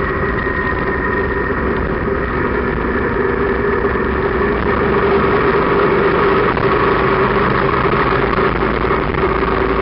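Motorcycle engine running steadily at road speed, with wind and road noise, heard from the sidecar; it grows a little louder about halfway through.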